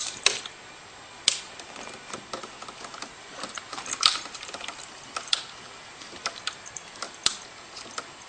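Irregular sharp plastic clicks and taps, single and in quick clusters, as a cat paws at and rubs against a plastic humidifier.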